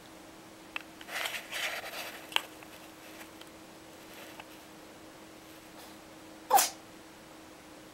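A pet sneezing: about a second in comes a stretch of breathy noise, then a single short, sharp sneeze, the loudest sound, a little before the end.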